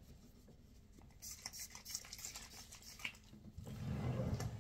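Pump-spray bottle of watermelon hydrating face mist sprayed several times in short hissing puffs, followed by a low rumble of the bottle being handled near the end.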